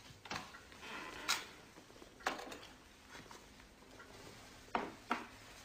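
A handful of short, separate knocks and taps, about five in all, with two close together near the end.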